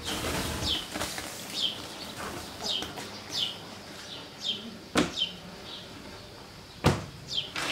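A small bird chirping repeatedly in short falling chirps, roughly one a second. Two sharp knocks come about five and seven seconds in.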